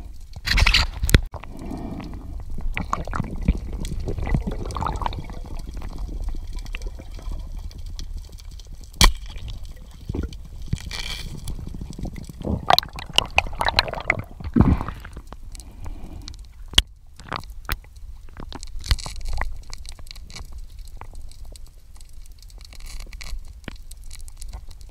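Underwater sound picked up by the camera: water rushing and gurgling as a diver struggles with an octopus, over a steady low rumble, with scattered sharp clicks and knocks.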